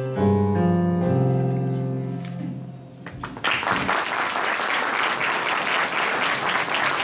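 The final chords of a song on an electronic keyboard, held and fading out, followed about three seconds in by audience applause that carries on to the end.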